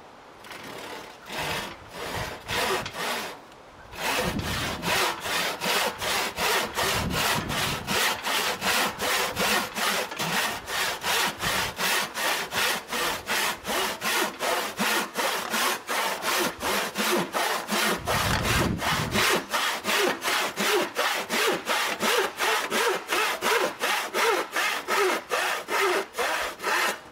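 Vintage Spear & Jackson hand saw cutting through a wooden board. It opens with a few short starting strokes and a brief pause, then settles into a steady rhythm of about two strokes a second that stops near the end.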